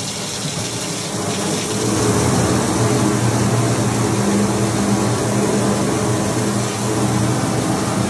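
Water spraying under pressure from a brass hose-bib outlet fed through a 25 psi pressure regulator, the jet splashing onto a stainless steel sink: a steady rushing that gets louder about two seconds in, with a steady low hum underneath.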